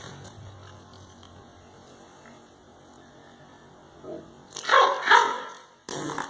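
A dog vocalizes: two loud short sounds come close together about four and a half seconds in, then a shorter one near the end. Before them there is only a low steady hum.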